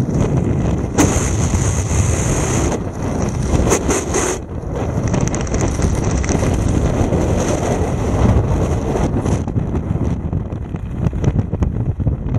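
Wind rushing and buffeting over the camera microphone during flight under an open parachute canopy: a loud, gusty rumble with brighter hissing stretches about a second in and again around four seconds.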